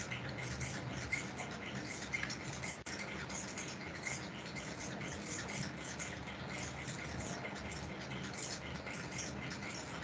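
Steady crackling, scratchy background noise with a low hum underneath, heard through a voice call.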